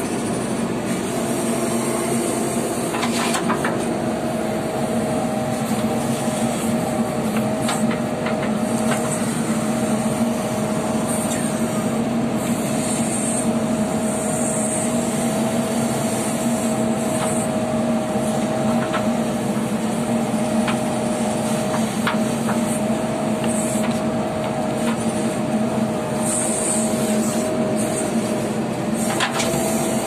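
JCB 3DX backhoe loader's diesel engine and hydraulics running steadily as the backhoe arm digs, heard from inside the operator's cab, with a steady whine over the engine hum. A few sharp knocks come through at scattered moments.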